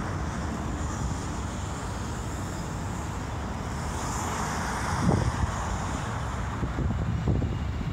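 Steady roar of freeway traffic with wind buffeting the microphone, and a distant airliner's jet roar swelling about halfway through as the Airbus A380 rolls out on the runway.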